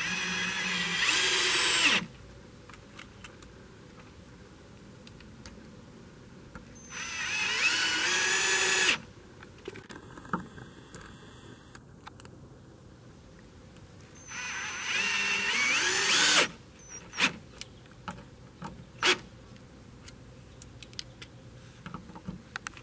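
Cordless drill driving screws up through a metal joist bracket into a wooden end joist, in three runs of about two seconds each, several seconds apart, the motor pitch rising within each run. Light clicks and taps come between the runs.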